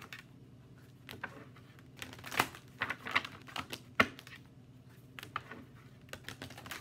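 Oracle card deck being shuffled by hand: cards slapping and sliding against one another in short bursts, with one sharp tap of the deck on the table about four seconds in.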